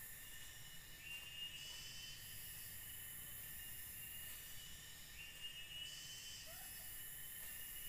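Forest insect chorus: several steady high-pitched drones, with a rising trilled phrase that repeats about every four seconds. A few faint short chirps near the end.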